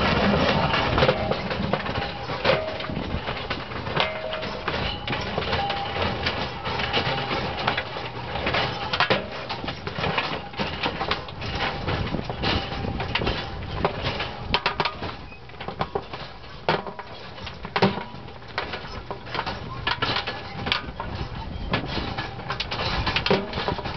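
Tractor-drawn Degelman rock picker working a stony field: a constant irregular clatter of stones knocking against the machine as it gathers them, over the tractor's steady engine.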